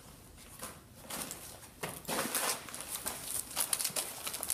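Hands rummaging in a soft first aid bag: rustling fabric and crinkling of wrapped gauze pads and bandages, in irregular scratchy bursts.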